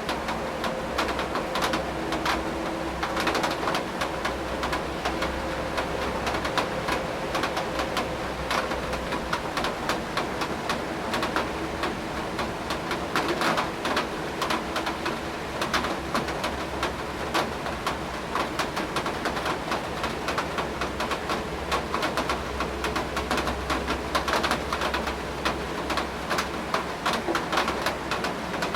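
Rain falling steadily, with dense irregular pattering of drops striking a hard surface over a low rumble.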